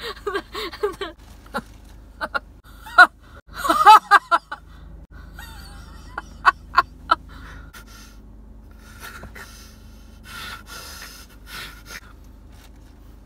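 Two people laughing hard without words, gasping for breath between loud breathy bursts. A few sharp short ticks come in the middle, and quieter breathy hissing follows.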